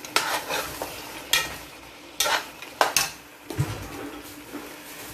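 Metal spoon stirring chunks of bone-in meat and vegetables in a pot, with several sharp scrapes and clinks against the pot over a steady sizzle of frying.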